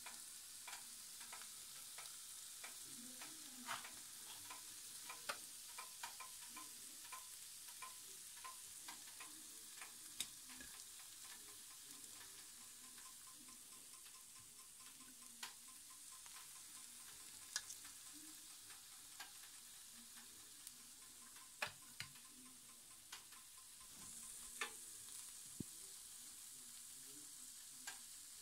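Shrimp and sausage skewers sizzling faintly on the ridged plate of an All-Clad electric grill: a steady hiss with scattered pops and crackles.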